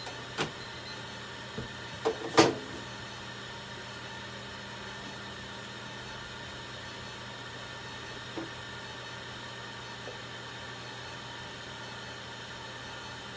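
Steady hum of running equipment, with a few sharp knocks in the first few seconds, the loudest about two and a half seconds in, and two faint ticks later.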